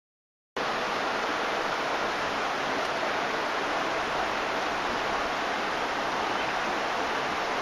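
Steady rush of a shallow stream running over stones, cutting in suddenly about half a second in.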